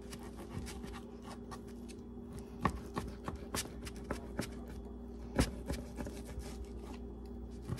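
Kitchen knife slicing raw sirloin steak on a cutting board: irregular soft scrapes and taps, with a couple of sharper knocks of the blade on the board, over a steady low hum.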